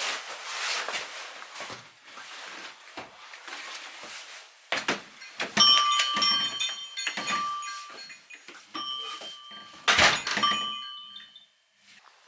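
Scattered clicks and knocks, then a series of electronic beeps, each held about half a second, broken by sharp knocks; the loudest knock comes about ten seconds in.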